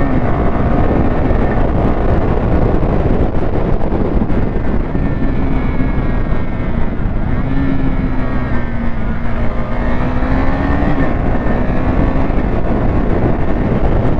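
KTM Duke 390's single-cylinder engine under way at a fairly steady speed, its note holding level and easing a little down and back up, over a loud rush of wind on the microphone.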